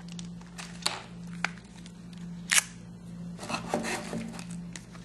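Scattered light clicks and rustles of a BlackBerry Storm smartphone being handled and turned over in the hands, with a small cluster of clicks a bit past halfway, over a steady low hum.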